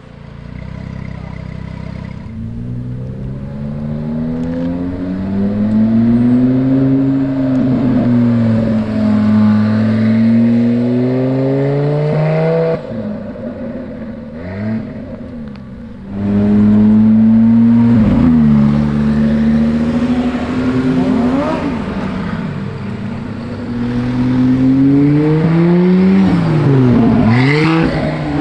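KTM X-BOW GT-XR's Audi 2.5-litre turbocharged five-cylinder engine revving and accelerating in repeated pulls, its pitch climbing and dropping again and again.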